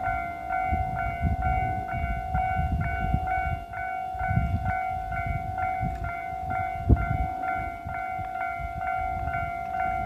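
Japanese railway level-crossing warning bell ringing in an even rhythm of about two strikes a second over a steady ringing tone, with a low rumble underneath.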